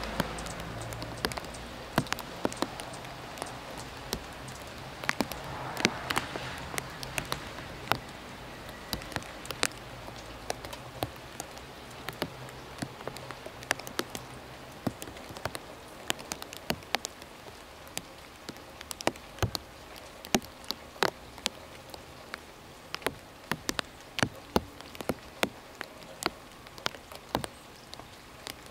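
Raindrops dripping irregularly onto nearby leaves and surfaces: sharp ticks, several a second at times, over a soft steady hiss of rain.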